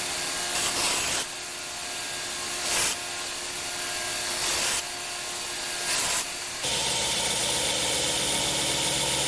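Belt grinder running while a stainless steel knife blade held in a grinding jig is ground to put in its bevels. The grinding noise swells in four short passes, about one and a half to two seconds apart. About two-thirds of the way through the sound shifts to a steadier, fuller hum.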